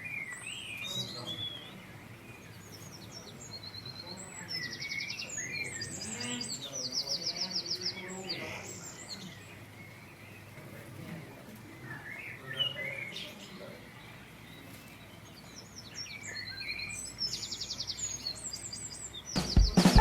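Small songbirds chirping on and off, with several fast, rattling trills of rapidly repeated high notes, over a faint steady background hiss.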